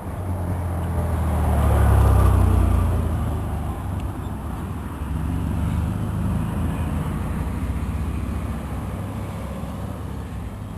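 Road traffic: a motor vehicle passes close by, its noise building to a peak about two seconds in and then fading, followed by a gentler swell of passing traffic.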